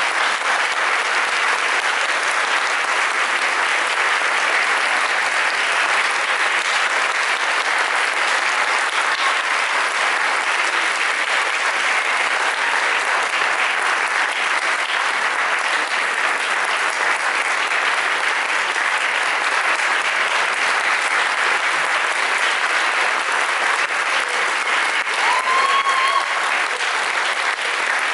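Concert audience applauding steadily, with one short rising call ringing out above the clapping near the end.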